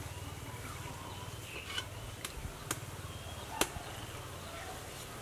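Food sizzling in a hot wok over a low steady hum, with a few sharp metallic clicks of a utensil against the wok, about four of them spread through the middle.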